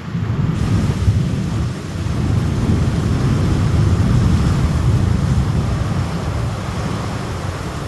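Thunderstorm with a deep rolling rumble over a steady hiss of rain; the rumble swells through the middle and eases near the end.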